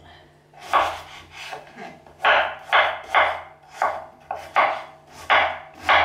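Kitchen knife chopping a raw carrot into chunks on a wooden cutting board: a dozen or so sharp knocks of the blade through the carrot onto the board, at an uneven pace of about two a second.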